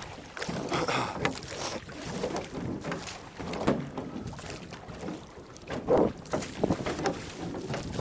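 Water splashing and sloshing around a small metal rowing boat moving over choppy sea, swelling louder every couple of seconds, with some wind on the microphone.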